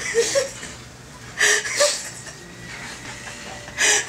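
A man's breathless, wheezing laughter: three airy gasps of breath with small squeaks of voice between them.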